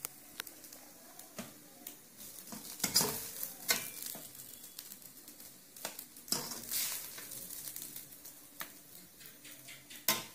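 A steel ladle scraping and scooping fried rice out of a pan and onto a plate, with irregular scrapes and clinks of metal on metal.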